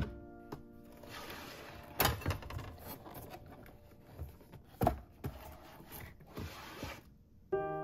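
Handling noises in a kitchen cabinet: a few sharp knocks and taps from a plastic storage drawer and a cardboard box of plastic wrap being moved, with soft scraping and rustling between. Background music comes back in near the end.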